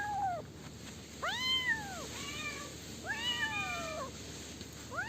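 Kittens meowing: a run of high-pitched meows, each rising and then falling in pitch, the tail of one at the very start and about four more following, the last beginning just before the end.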